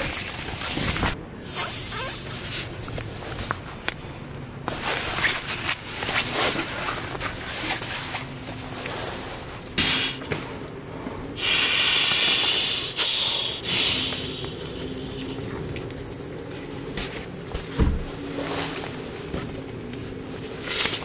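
Nylon rustling and swishing as a Therm-a-Rest sleeping pad and its stuff sack are handled and the pad is laid out on a camp cot, in many short bursts, with a steadier rushing noise lasting a couple of seconds near the middle.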